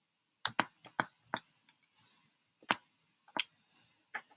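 A few short, sharp clicks at irregular spacing, some in quick pairs, like computer keys or a mouse button being pressed.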